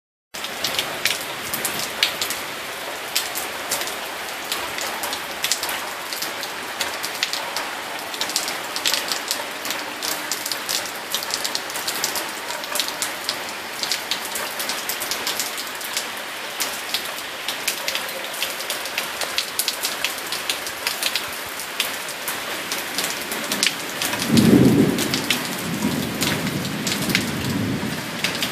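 Steady rainfall with many sharp, distinct drop hits. Near the end a low rumble of thunder rises and fades over a few seconds and is the loudest thing.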